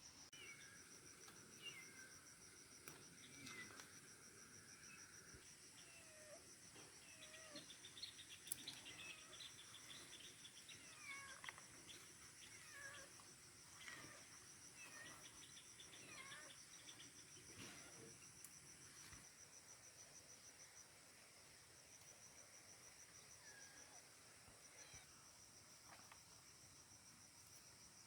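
Faint rural ambience: a steady high insect trill, with scattered short chirping animal calls through the first twenty seconds or so.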